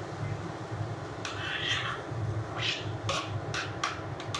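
Metal spoon stirring and scraping through onions and capsicum in a frying pan, working in just-added water to make a gravy, in several short rasping strokes from about a second in, over a steady low hum.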